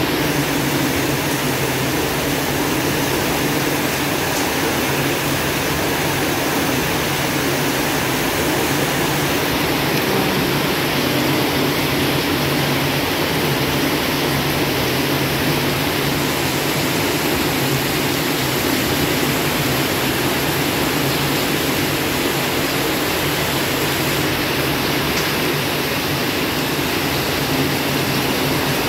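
Heavy rain pouring down in a steady, dense hiss, unbroken throughout.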